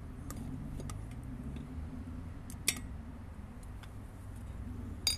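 A few sharp metallic clicks and clinks, one louder about halfway through and another near the end, as the parts of a small diesel engine's block are handled and worked apart. A steady low rumble lies underneath.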